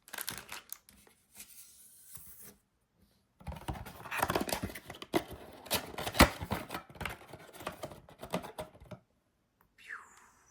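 Cardboard trading-card blaster box being torn open and its packs pulled out: irregular tearing, scraping and rustling, with a sharp click about six seconds in.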